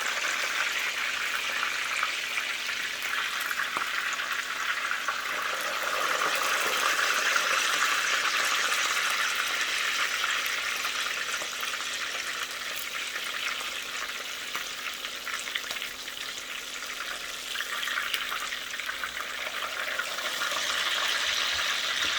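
Pork chops frying in plenty of hot oil in a frying pan: a steady sizzle with fine crackling, swelling a little about six seconds in and again near the end.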